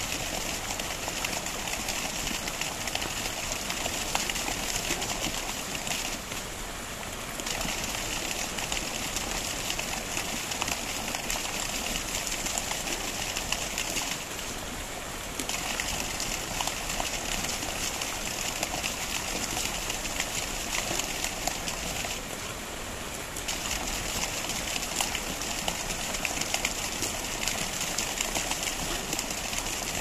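Water cascading steadily over rocks in a small garden waterfall, a constant rushing splash. About every eight seconds its bright hiss thins out for a second or so, then returns.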